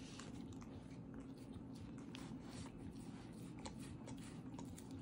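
A puppy licking food off a lick mat: faint, quick, irregular licking and smacking sounds.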